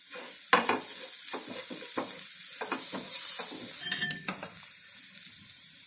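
Spice masala of onion, tomato and chilli sizzling in a frying pan while a wooden spatula stirs and scrapes it in short strokes, with a brief louder surge of sizzle about three seconds in. The masala is being fried so that its raw smell cooks off.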